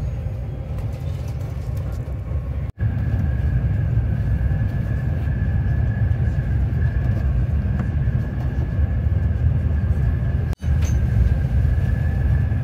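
Cabin noise of the Sapsan high-speed train running at speed: a steady low rumble, with a steady high whine joining about three seconds in. The sound cuts out abruptly twice, about three seconds in and near the end.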